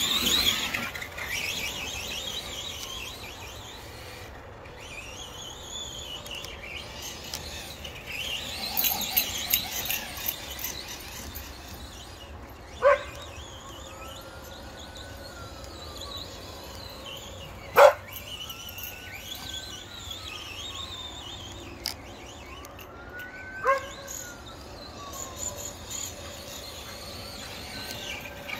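Brushless electric motor of an Arrma Granite Voltage RC truck whining, its pitch rising and falling again several times as the truck speeds up and slows down. A few short, sharp sounds, about five seconds apart in the second half, stand out as the loudest moments.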